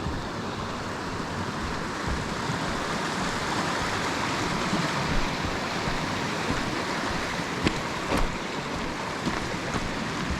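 Steady rush of a moorland river flowing over rocks. A couple of brief knocks come about eight seconds in.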